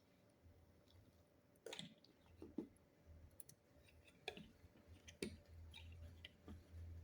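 Faint, irregular clicks and knocks of plastic LEGO parts being handled.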